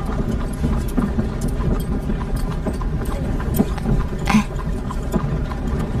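Horse-drawn carriage on the move: hooves clip-clopping over a steady low rumble of the wheels, with irregular knocks and one sharper knock a little over four seconds in.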